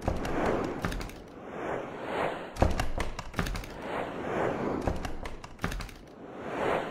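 Edited intro soundtrack of repeated rushing whooshes punctuated by heavy thuds and sharp hits. The strongest impact comes about two and a half seconds in.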